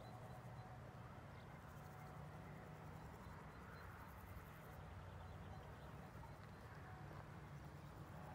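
Near silence: faint outdoor ambience with a low steady hum.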